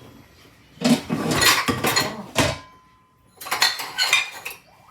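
Metal kitchen utensils and dishes clattering and clinking as someone rummages through them looking for a ladle, in two spells of rapid knocks.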